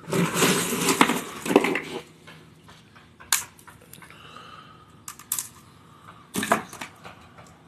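Blue crabs being handled: a dense clatter and scraping for about the first two seconds, then a few separate sharp cracks and snaps of crab shell.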